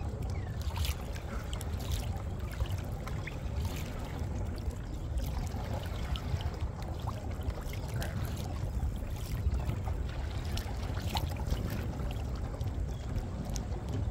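Small waves lapping and splashing against a kayak's hull, with scattered small splashes and a steady low rumble underneath.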